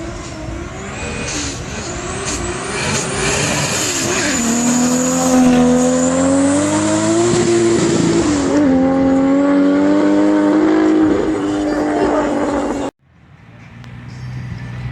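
Toyota Supra engine running hard at high revs: the pitch climbs over the first several seconds and then holds, dipping briefly about eight and a half seconds in. The sound cuts off abruptly near the end, and another engine sound starts to rise.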